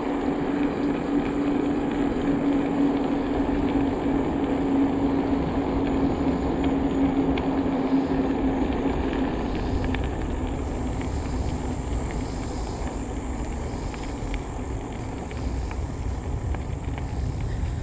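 E-bike rolling along a paved path: steady tyre and wind noise, with a low steady hum that fades out about ten seconds in.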